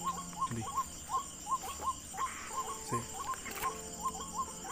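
Night chorus of short, rising chirping calls, about four a second at slightly different pitches, over a steady high-pitched insect drone.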